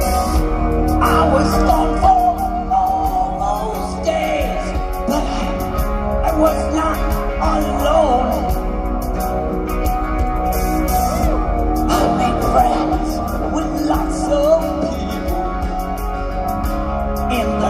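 Live rock band playing with a male lead singer singing into a microphone, his held, wavering sung lines over the band.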